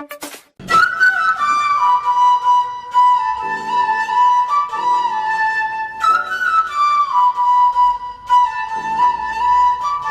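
Background music: a slow flute-like melody with sliding notes over soft accompaniment, starting about half a second in and repeating its phrase.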